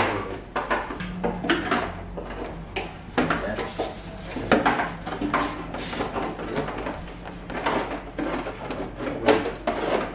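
Unpainted race-motorcycle fairing being handled and pushed into place over the front of the bike: a run of irregular plastic knocks, rubs and rattles as the bodywork meets the frame and air scoop.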